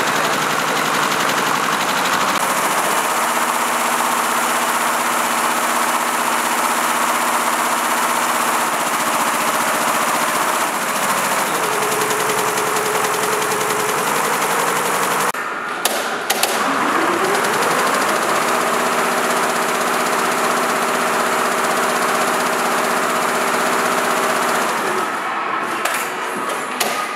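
MAYA dual-needle multi-head embroidery machine running, its needles stitching in a fast, dense rhythm over a steady motor whine that shifts pitch now and then. About halfway through the sound breaks off briefly, then a rising whine as it picks up again.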